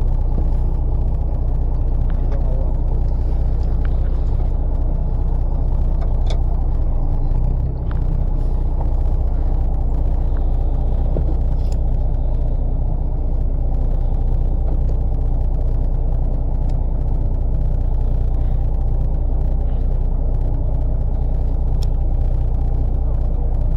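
A fishing boat's engine running steadily: a low, even drone with a few faint clicks over it.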